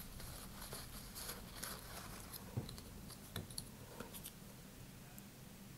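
Faint, scattered light clicks and rustles of hands working a small vacuum-formed plastic panel and a paper towel, wiping off excess super glue. They die away after about four and a half seconds.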